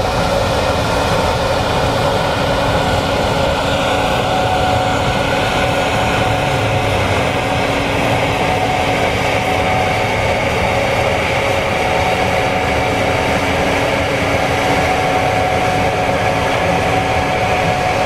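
Gleaner S96 combine running while harvesting soybeans: a steady machinery drone with a constant whine.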